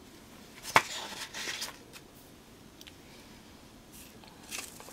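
Craft materials being handled on a tabletop: a sharp tap about a second in, then brief light rustling.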